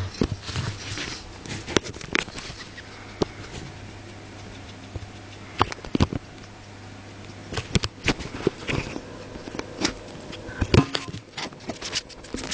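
A gerbil with a long-term sniffle making irregular sharp clicks and short rustles as it breathes and moves, over a low steady hum. The sniffle is a chronic respiratory condition, not an acute respiratory infection.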